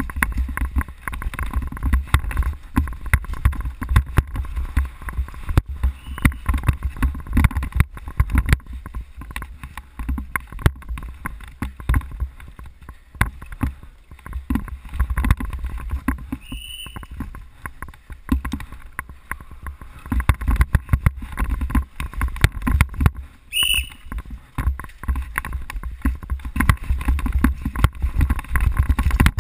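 Downhill mountain bike descending a rough dirt trail: continuous rattling and knocking of the bike and the mounted camera over bumps, with a heavy low rumble. Two short high squeaks come about two thirds of the way in and again a few seconds later.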